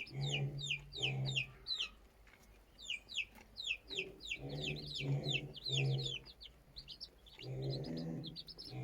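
Chicks peeping constantly in quick, high, falling chirps, several a second, with groups of lower, longer clucking calls from an adult hen breaking in now and then.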